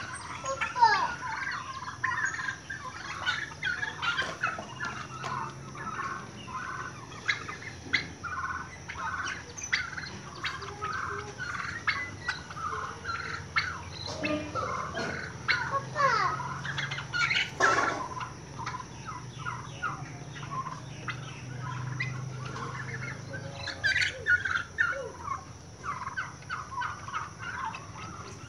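A flock of domestic turkeys calling continuously: many short overlapping calls, several a second, with gobbling among them.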